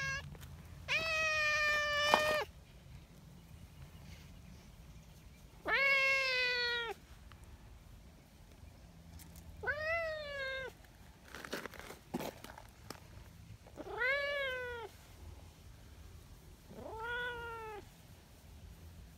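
Brown tabby cat meowing loudly five times. The first two meows are long and held on one pitch and are the loudest; the last three are shorter, with a pitch that rises then falls. There is some faint rustling between the third and fourth.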